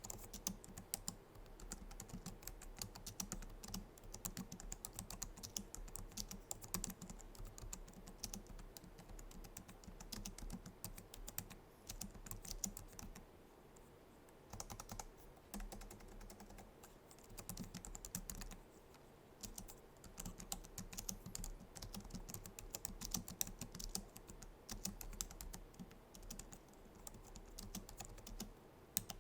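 Logitech MX Keys keyboard being typed on at a steady pace: quick, soft clicks of its low-profile scissor-switch keys, with a couple of short pauses around the middle.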